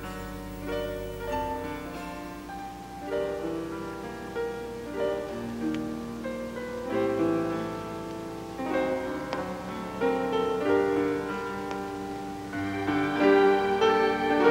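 Instrumental background music with piano, slow held chords that swell fuller and louder near the end.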